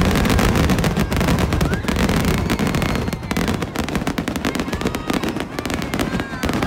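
Aerial fireworks display going off in a dense barrage, many rapid bangs and crackles overlapping without a break.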